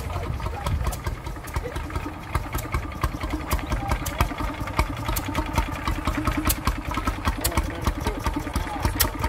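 An engine idling with a steady, rapid beat, with voices in the background.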